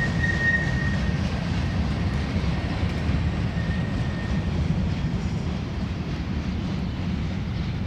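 Departing loaded freight train, a steady low rumble of diesel locomotives and rolling hopper cars. A high, steady whine fades out about a second in and returns faintly for a moment a few seconds later.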